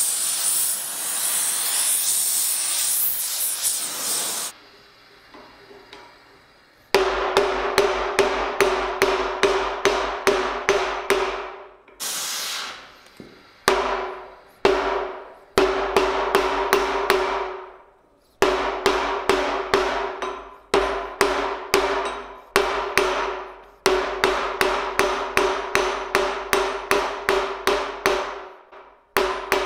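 A gas torch hisses for the first four seconds or so, heating a steel bar. From about seven seconds in, a hammer strikes the red-hot steel bar on a bench vise in fast runs of about four blows a second, with short pauses between runs. Each blow rings.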